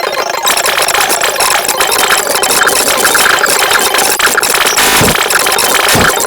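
An engine running steadily with a dense rattle, with two low thuds that slide down in pitch near the end.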